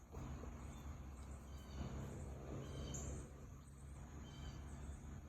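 Faint outdoor ambience: a steady low rumble with a few brief high chirps, the loudest about three seconds in.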